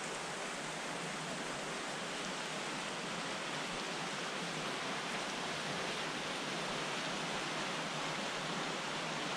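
Water of Box Canyon Falls rushing behind and under its frozen ice curtain: a steady, even hiss.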